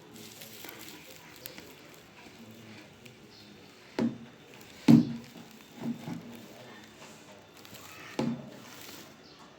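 A few dull knocks or thumps, the loudest about five seconds in, two close together about a second later and one more near the end, over faint room noise.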